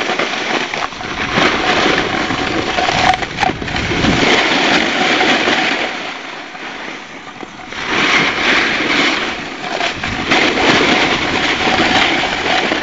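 Edges scraping and hissing over hard-packed piste snow, swelling and easing in waves through the turns, quieter for a moment about halfway through.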